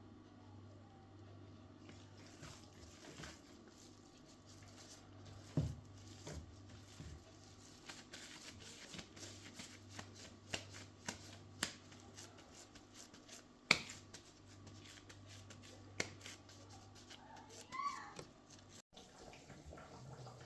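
Household handling sounds: scattered light clicks and knocks of objects being picked up and set down, the sharpest about 14 seconds in, with a short ringing clink near the end, over a low steady hum.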